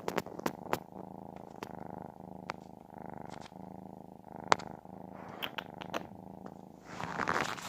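Siamese cat purring close to the microphone, a steady low buzz that swells and eases with each breath, with scattered sharp clicks and a louder rustling noise near the end.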